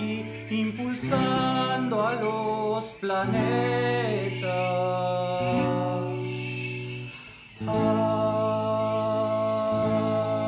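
Folk band playing: acoustic guitar and tiple with long held, wordless vocal notes over a low steady bass.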